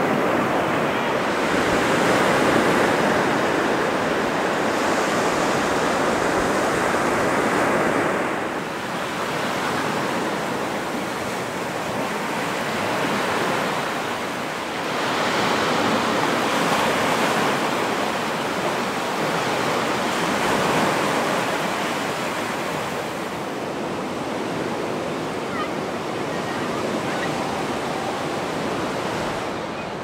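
Sea surf breaking and washing up a sandy shore, a steady rushing that swells louder and softer every several seconds as the waves come in.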